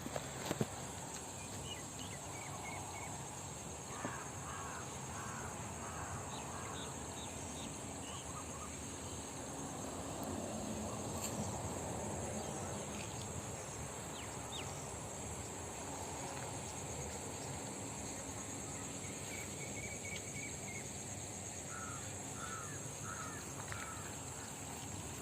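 Outdoor rural ambience: a steady, high insect drone with bird calls, including two quick runs of about four chirps, one a few seconds in and one near the end.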